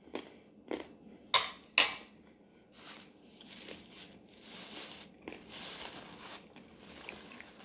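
Thin plastic bag crinkling and crackling as it is handled, with a few sharp crackles in the first two seconds, then softer rustling.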